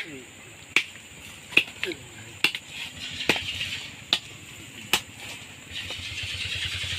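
Sharp knocks repeating at an even pace, about one a second, seven in a row, stopping about five seconds in.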